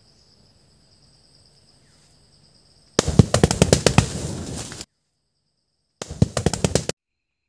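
Balloons treated with foam party spray catching fire and bursting: a fast string of sharp cracks and pops with the rush of flame about three seconds in, lasting nearly two seconds, then a second, shorter burst of pops about six seconds in. Each burst cuts off abruptly.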